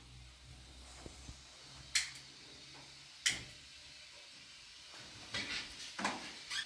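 Kitchen handling sounds: two sharp knocks, then near the end a wall cupboard's door opened and things moved about inside it with a few quick knocks and rattles.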